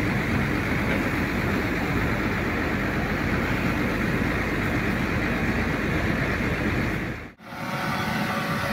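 Steady rumble of road traffic under a concrete overpass. About seven seconds in it cuts off abruptly, and a skip-loader truck's diesel engine is heard running with a steady whine.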